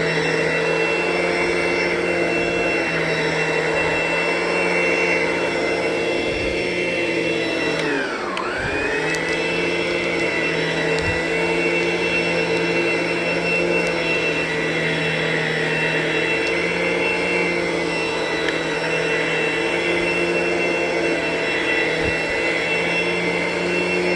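ProTeam ProForce upright vacuum running steadily on carpet. Its motor whine dips in pitch briefly about eight seconds in, then comes back up.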